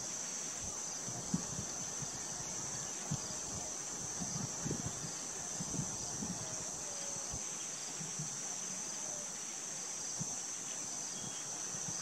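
Steady high-pitched drone of an insect chorus, crickets or cicadas, with scattered soft low thumps and a few faint distant bird chirps.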